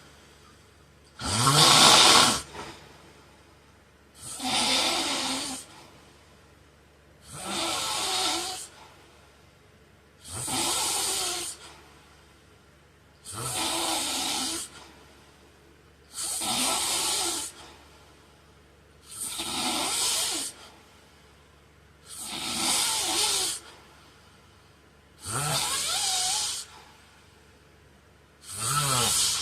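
A man snoring in a steady rhythm, about one snore every three seconds, each lasting a second or so with a low buzz. The first snore is the loudest.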